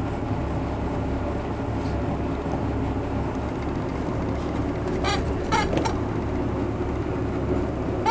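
A dog's squeaky rubber chicken toy squeaks twice in quick succession about five seconds in, short and high-pitched, over a steady low background rumble.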